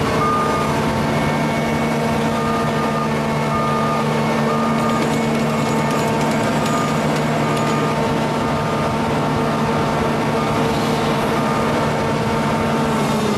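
Diesel engine of a New Holland self-propelled forage harvester running steadily while the machine is bogged in deep mud. Over it, a warning beeper sounds about one and a half times a second.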